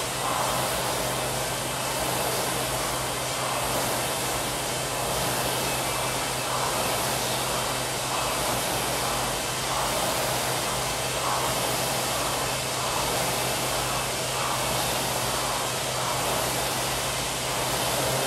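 Air rowing machine's fan flywheel whirring, swelling with each pull stroke about every second and a half.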